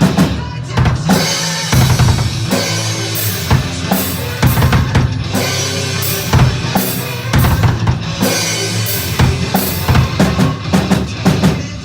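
Drum kit played along to a recorded backing track, with a steady run of bass drum and snare hits over the sustained music of the song.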